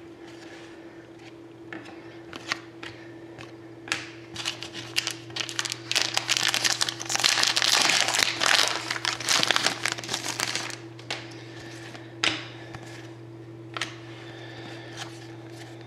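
Foil trading-card pack wrappers crinkling as they are handled and opened, with a dense crackling rustle through the middle and scattered sharp clicks of cards being handled before and after. A steady low hum runs underneath.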